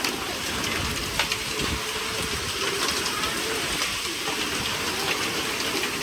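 Heavy rain pouring down in a storm, a steady dense hiss with scattered sharp taps.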